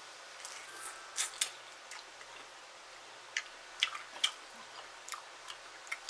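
Close-miked chewing of fried chicken wings: irregular short, crisp clicks and wet mouth smacks, a cluster about a second in and more toward the middle and end.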